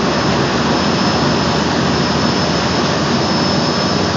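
Aluminum seine skiff's engine running hard and steadily under load while towing on a taut line, mixed with the rush of churning prop wash, and a thin steady high whine over it.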